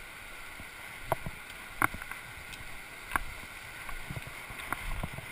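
Steady rush of the Virgin River flowing over rocks in a narrow canyon, with a few sharp clicks of a trekking pole and footsteps striking the river cobbles.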